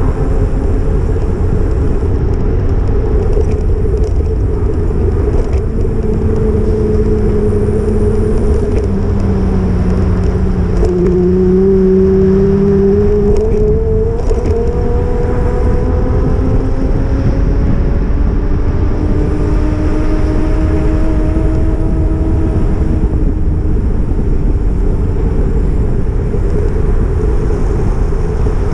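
Steady, loud low rumble of a Brompton folding bicycle being ridden, the bike-mounted GoPro picking up wind and road noise. A few faint whining tones slowly rise and fall in pitch through the middle.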